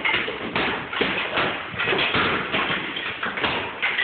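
Hammers striking old plaster-and-lath wall, quick irregular knocks and cracks of wooden lath breaking away.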